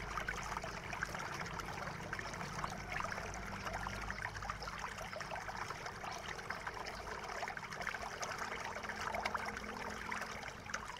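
Faint small ticks and scrapes of a precision screwdriver and tweezers working the bottom-case screws of an Axioo MyBook 10 netbook, over a steady hiss.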